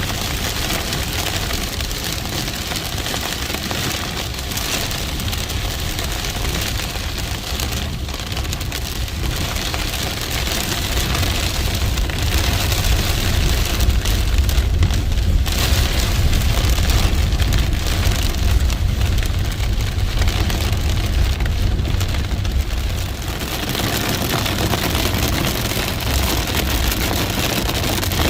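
Heavy rain pouring down steadily over a deep low rumble, growing heavier partway through, then easing a little near the end.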